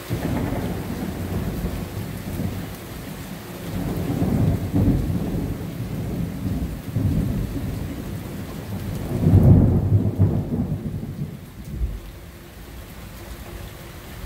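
Thunder: a long, deep rumble that breaks in suddenly and rolls on in several swells, loudest about ten seconds in, then dies away near the end.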